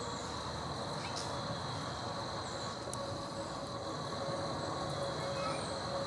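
Steady background hum with a constant high whine, and a few faint, short high chirps from small birds, with two faint clicks in the first half.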